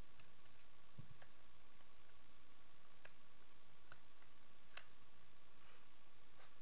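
Scattered small clicks and taps of plastic drone parts and small screws being handled during disassembly, with a low thump about a second in and the sharpest click near five seconds in, over steady hiss and a faint high hum.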